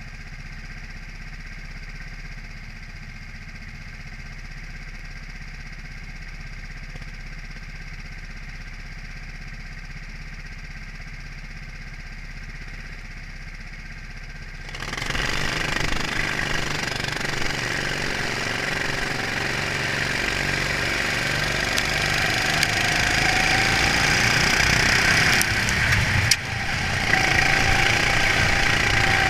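Racing kart engine heard from on board: steady low-throttle running for the first half, then about halfway it goes abruptly to full throttle as the race gets under way. It stays loud with the engine note climbing, dips briefly about three seconds before the end as the throttle comes off for a corner, then picks up again.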